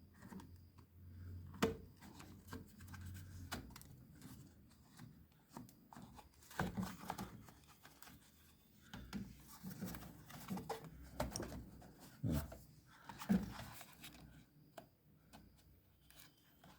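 Hands working with small parts: scattered clicks, taps and rubbing, with a faint low hum in the first few seconds, until a part is fitted in place.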